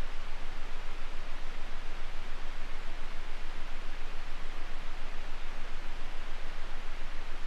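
Steady rushing waterfall ambience, an even hiss across all pitches that swells and dips about six times a second.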